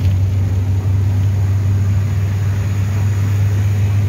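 Steady low drone of a bus engine and road noise, heard from inside the moving bus cabin.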